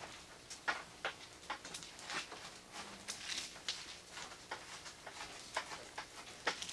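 Pencil sketching on paper: faint, irregular scratchy strokes, several a second.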